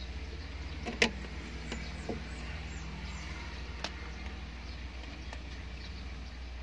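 A few sharp plastic clicks and taps as a small plastic water bottle is handled and its spray top fitted, the loudest about a second in, over a steady low hum.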